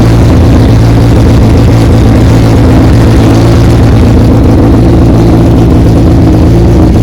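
1997 Honda Civic's four-cylinder engine idling steadily on its first start after a cylinder head rebuild. It runs rough, which the mechanic puts down to first-start running, weak spark from the distributor, or a cylinder not firing.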